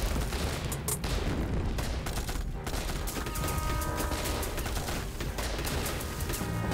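Massed gunfire in a battle: many guns firing at once in a dense, continuous fusillade, with rapid overlapping shots.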